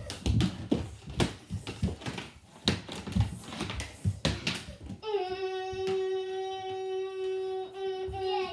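Plastic mini hockey sticks clacking and scraping on a hardwood floor, with quick knocks of the ball. About five seconds in, a child's voice holds one long, steady note for about three seconds.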